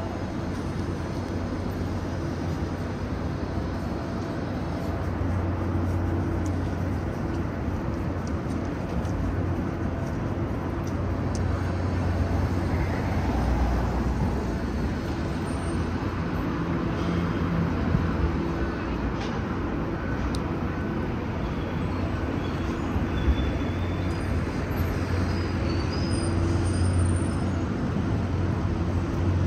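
City street traffic: a steady low rumble of passing cars and buses, with a few faint short higher tones and clicks over it.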